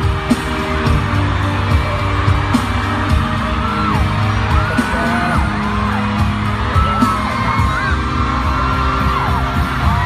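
Live arena concert sound recorded from among the audience: loud pop music with a heavy bass beat, and fans screaming and yelling over it.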